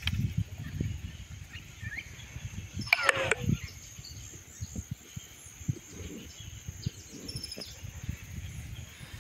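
Outdoor pasture ambience with birds chirping, and one loud call that falls in pitch about three seconds in, over irregular low rumbling.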